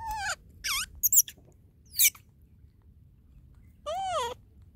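Baby macaque calling: a few short, high squeals in the first second, a quick rising squeak about two seconds in, and a longer call that rises and falls near the end.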